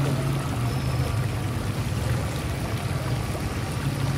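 Fish deep-frying in a large karahi of hot mustard oil, the oil bubbling and sizzling steadily, over a steady low hum.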